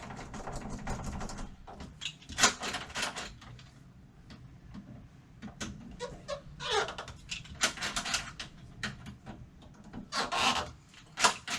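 Hand work on door lock hardware: irregular clicks, knocks and scraping of metal parts, with a short falling squeak about seven seconds in.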